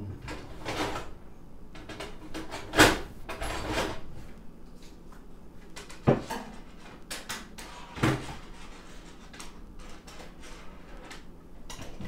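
Rummaging off to one side: things being moved and handled, with rustling and a run of sharp knocks, the loudest about three seconds in and two more near six and eight seconds.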